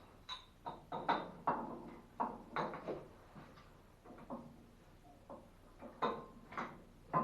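Irregular clicks and light metallic knocks, about a dozen of them, from plumbing fittings and tools being handled while a new ball valve is fitted. The knocks are spread unevenly, with a quieter gap around the middle.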